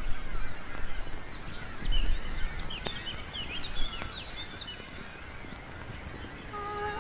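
Outdoor ambience of many birds chirping in quick short calls, over a low rumble. Two sharp clicks fall near the middle.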